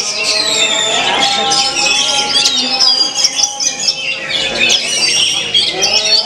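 Oriental magpie-robin (kacer) in full contest song: rapid, varied whistled phrases and trills, thick with overlapping song from other competing birds.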